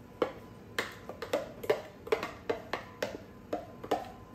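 Metal spoon knocking and scraping inside a plastic food-processor bowl to get the last of the pesto out: irregular sharp clicks, about three to four a second.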